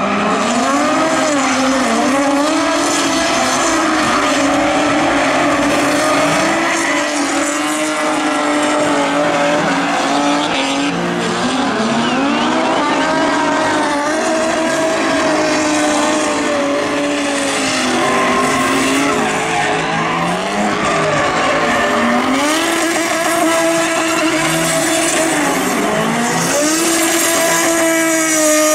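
Drift car engine held at high revs, its pitch repeatedly rising and falling, over a steady screech of tyres spinning and sliding through a smoky burnout.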